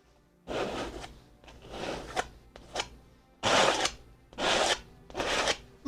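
Edge of an old credit card loaded with acrylic paint scraped across a stretched canvas: about six rough scraping strokes, the later ones loudest.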